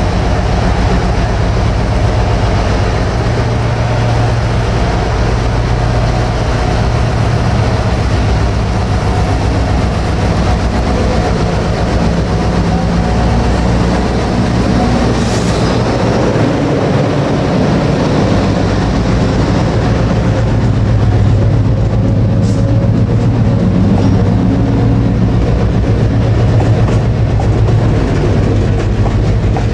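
Class 60 diesel freight locomotive passing close by, its eight-cylinder Mirrlees engine running with a steady low note, then its long train of box wagons rolling past on the rails.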